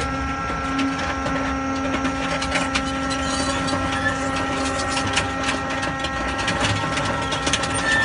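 250-ton hydraulic scrap metal baler running: the steady hum and whine of its electric motor and hydraulic pump, with scattered clicks and crackles throughout.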